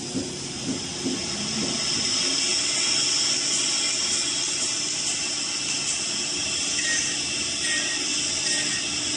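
Woodworking CNC machine with a saw blade and four spindles running: a steady high hiss with a faint steady hum beneath.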